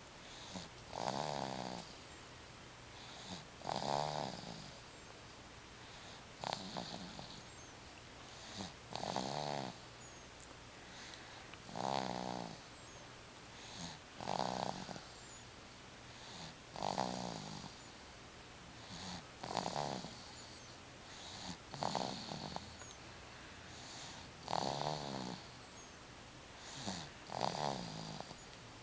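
Sleeping baby snoring in a slow, even rhythm, one snore about every two and a half seconds.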